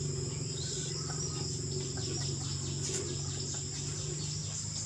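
Insects chirring steadily in a high, even band, with a low steady hum beneath.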